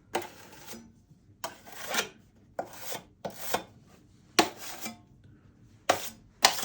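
Drywall knife scraping joint compound across the wall in short strokes, one after another at an uneven pace, as the mud is spread and wiped back off.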